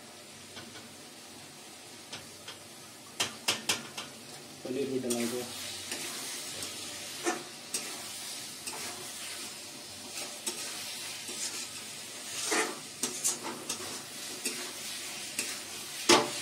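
Potato and paneer cubes frying in masala in a steel kadhai, sizzling as a steel spatula stirs them. The sizzle thickens from about five seconds in, and the spatula scrapes and knocks against the pan now and then, hardest near the end.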